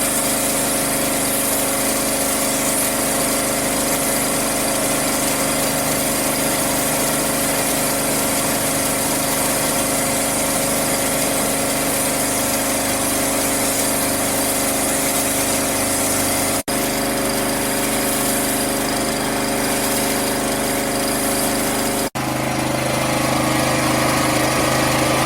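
Petrol-engine pressure washer running steadily, with the hiss of its water jet spraying the walls. The sound cuts out for an instant twice, and after the second break the engine's pitch is different.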